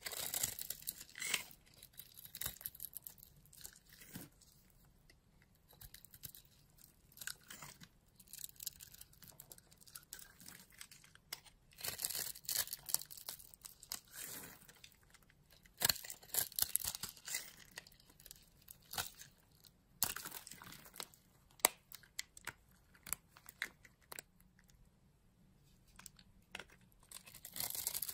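A knife blade cutting and crumbling the small cubes carved into a bar of soap. Crisp crackling and scraping comes in bursts of a second or two, with single sharp clicks between them.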